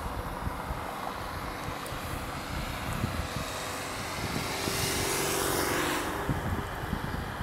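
A van driving past close below, its engine and tyre noise swelling to a peak about five seconds in and falling away sharply at about six seconds, over wind buffeting the microphone.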